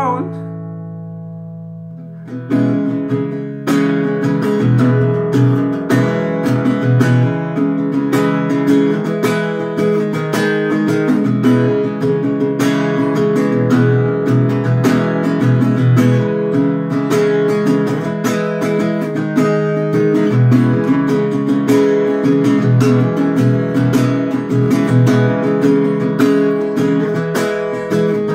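Acoustic guitar: a held chord rings out and fades for about two seconds, then fast, steady strumming of chords starts up and carries on.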